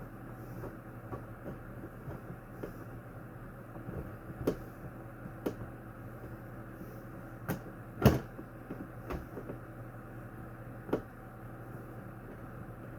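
Box fan parts being handled while it is cleaned: scattered clicks and knocks, the loudest a little after the middle, over a steady low hum.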